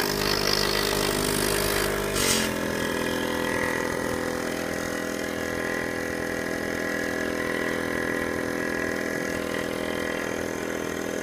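Small electric tyre-inflator air compressor running steadily. About two seconds in there is a short hiss as the hose connector goes onto the tyre valve, and the motor's pitch drops slightly as it starts pumping air into the tyre.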